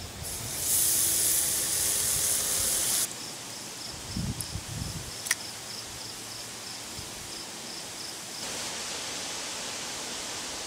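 Bacon strips sizzling on a hot grilling stone: a loud, high sizzle as the strips go down, cutting off about three seconds in, then a quieter steady sizzle.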